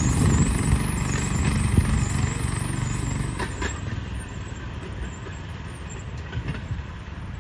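Railway motor trolley's engine running as it pulls away along the track, its low rumble fading steadily. There are a couple of sharp clicks about three and a half seconds in.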